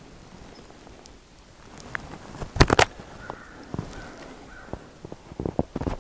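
Footsteps in softened snow: a quick cluster of sharp steps about two and a half seconds in, the loudest sound, and several more steps near the end.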